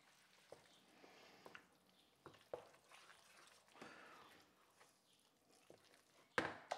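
Faint scattered spoon clicks and soft squelching of thick risotto being stirred in the pan, with a sudden louder sound near the end.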